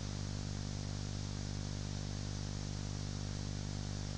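Steady electrical hum with a stack of even overtones under a soft hiss: the noise floor of the launch commentary audio channel between announcements, with no rocket sound heard.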